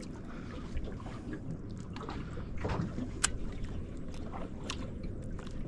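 Small boat sitting on the water: a steady low wash of water against the hull with wind on the microphone, and a few light knocks scattered through.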